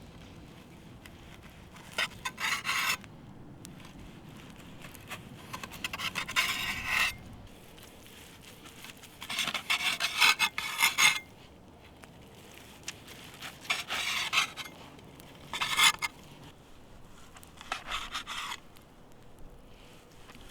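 Knife sawing through a seared steak in short runs of strokes: about six rasping bursts, each roughly a second long, with pauses between.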